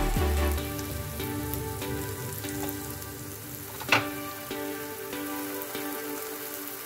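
Banana slices frying in hot fat in a nonstick pan: a steady crackling sizzle of small pops, with one sharp louder pop about four seconds in.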